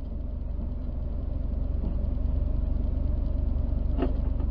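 Car engine idling steadily with a low, even rumble, and a short knock about four seconds in as a reversing SUV's rear bumper hits the front of a parked sedan.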